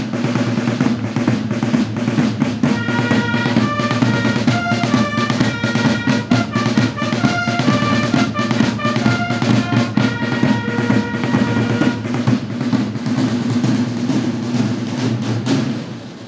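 Marching drums, snare and bass, playing a continuous rolling beat. A melody of high held notes plays over the drumming from about three seconds in until about twelve seconds in.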